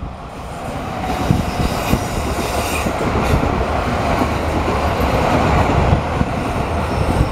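JR West 207 series seven-car electric train running through the station at speed without stopping: a steady rumble of wheels on rail, building over the first second as the front cars come alongside.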